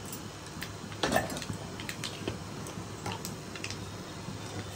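Green chillies and turmeric frying in hot oil in a steel kadai, giving a steady faint sizzle, with a sharper sound about a second in and a few light metal clinks later.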